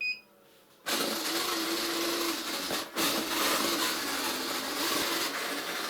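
A Sichler robot vacuum gives a short beep, then under a second later its suction fan and drive motors start together, a steady rush of air with a steady hum, as it begins a spot-cleaning run. The sound dips briefly about three seconds in.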